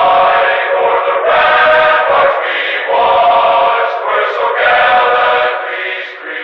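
A choir singing slow, sustained phrases. About five and a half seconds in the sound thins out and begins to fade.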